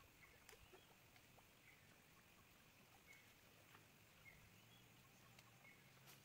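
Near silence: faint outdoor ambience with a few soft scattered ticks and short high chirps.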